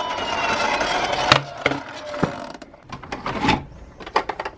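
Toy die-cast police car rattling as it rolls down a slope, with a steady tone fading away in the first second. Then a string of light, uneven clicks and knocks.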